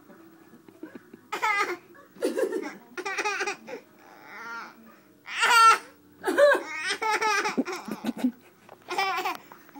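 High-pitched laughing in a string of short bursts, loudest about halfway through.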